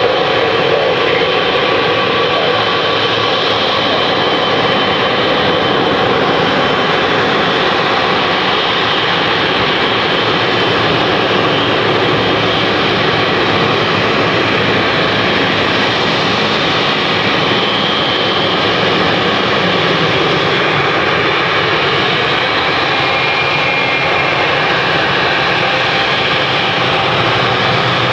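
Boeing 777's twin jet engines running at low thrust as the airliner taxis onto the runway and lines up: a steady jet rumble with a thin whine on top.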